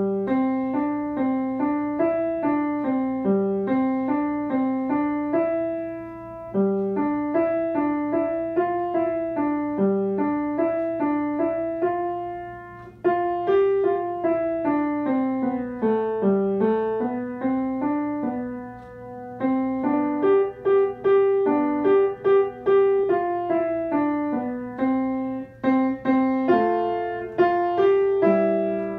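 Upright piano playing a short elementary-level piece, note by note in the middle register, in short phrases with brief pauses between them.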